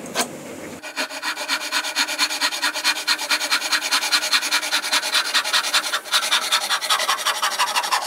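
Hand saw cutting a wooden strip in quick, even strokes, starting about a second in, with a brief break near six seconds.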